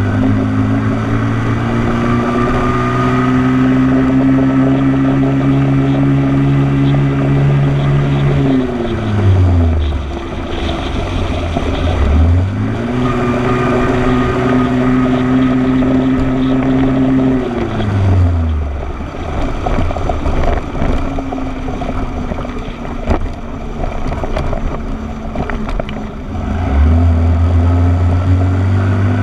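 Motorcycle engine running under way, its steady note dropping in pitch about nine seconds in and climbing back a few seconds later. It drops again just past halfway, stays low for several seconds, then picks up strongly near the end. Wind buffets the camera microphone throughout.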